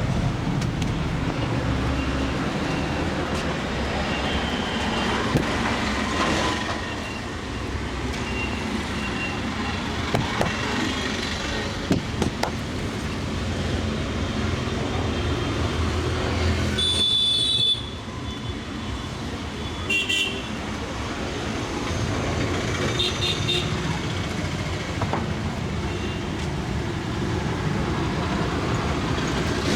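Street traffic noise with motor vehicles passing and several short horn toots a few seconds apart, mostly in the second half.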